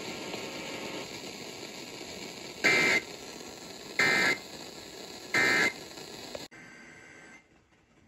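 Hiss of an FM broadcast through a small radio speaker, broken by three short buzzing data bursts about a second and a quarter apart: the EAS end-of-message tones closing a severe thunderstorm warning. About six and a half seconds in the broadcast cuts off suddenly, leaving faint hiss and then near silence.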